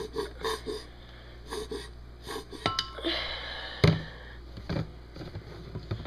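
A squeeze bottle of mustard being squirted into a glass: handling clicks and knocks, then a short squeak and a spluttering squirt about three seconds in, and a sharp knock of the bottle against the glass just before four seconds.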